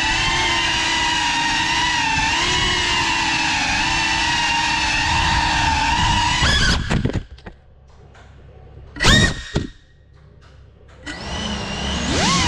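GEPRC Cinelog35 cinewhoop's brushless motors and ducted propellers whining steadily. About halfway through, the throttle is chopped and the sound almost drops away, except for one short throttle blip. Near the end it spools back up with a rising whine.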